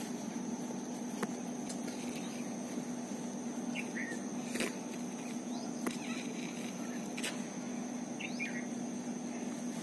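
Faint clicks and crinkles as a fresh green Thespesia populnea (Indian tulip tree) leaf is rolled tightly into a tube, the first stage of making a leaf horn. Underneath is a steady low hum, with a few short bird chirps.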